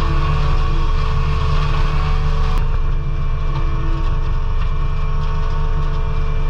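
Skid steer engine running steadily under load while it drives a hydraulic flail mower: a heavy, even drone with steady machine tones. There is an abrupt change about two and a half seconds in, and the sound carries on the same after it.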